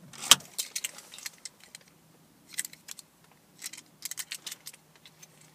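A car ignition key, a Vauxhall flip key, is turned back and pulled from the ignition with one sharp click. The key and its fob then rattle and click in the hand in short scattered bursts.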